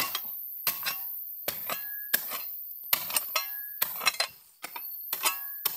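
Small steel digging shovel stabbed repeatedly into stony gravel soil, each stroke a crunch, several with a short metallic clink, about once a second.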